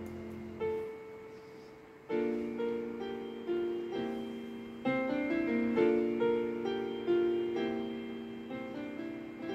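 Solo piano music: a chord dies away, a single note sounds, and from about two seconds in a gentle, unhurried line of notes and chords plays.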